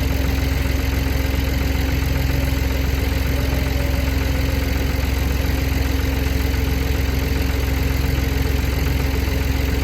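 An engine running steadily at a constant speed, with a steady low hum and no change in revs.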